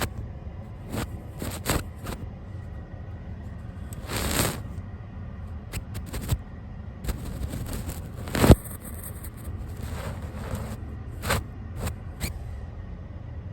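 A brush sweeping and dabbing across the camera and its microphone, close up: irregular scratchy strokes, with a longer swish about four seconds in and a sharp knock about eight and a half seconds in.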